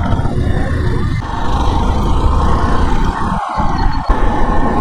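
Motorcycle riding at road speed: wind rushing over the microphone over engine and road noise, a steady rumble with a faint steady hum on top. The rumble briefly drops out about three and a half seconds in.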